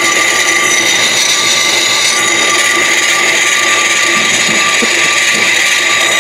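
Brake lathe spinning a Chevy Silverado 2500 HD front brake rotor while a hand-held abrasive is pressed against the rotor's hat to scrub off rust: a steady, loud scraping hiss with a high whine.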